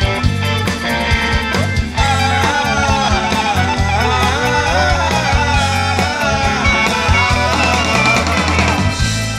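Live rock band playing an instrumental passage: electric guitar, electric organ, bass and drum kit. About two seconds in, a wavering lead line with pitch bends comes in over the band.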